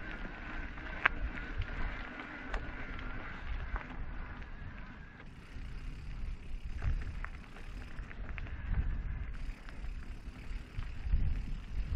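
E-mountain bike riding over a rough trail: low rumble and knocks from tyres and frame, small rattling clicks, and wind buffeting the microphone. The e-bike's motor whines for the first five seconds or so, then stops.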